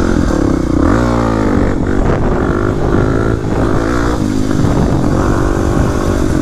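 Kawasaki KLX300's single-cylinder four-stroke dirt bike engine running under throttle as the bike is ridden, revving up about a second in, then rising and falling in pitch with the throttle.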